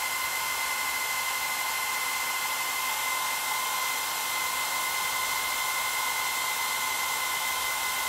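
SALONIA Glossy Care hair dryer running at a steady setting: an even rush of air with a steady high whine in it.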